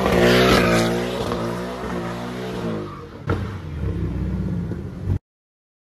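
Porsche Cayman's engine revving hard while spinning its rear tyres in smoky donuts, the pitch swinging up and down. A sharp crack about three seconds in, and the sound cuts off abruptly about five seconds in.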